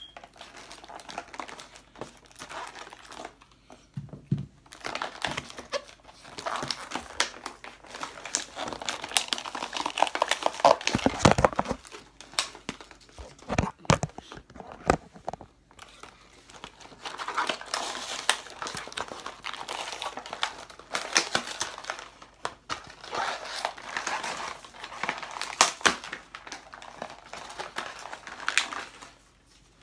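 Toy packaging, a cardboard box and clear plastic insert, being torn open and crinkled by hand to get the figure out: long spells of irregular crackling and tearing, with a few heavier knocks and a brief lull near the middle.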